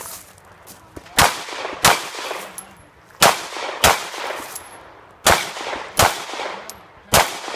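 Pistol shots fired in pairs, about two shots a second apart within each pair and a pair every two seconds or so, each shot trailing off in a short echo. Seven shots in all, the last one alone near the end.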